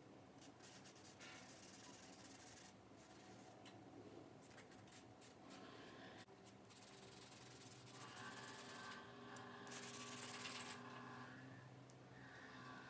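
Vine charcoal stick rubbing and scratching on sketchbook paper in faint, irregular strokes as dark shading is laid in.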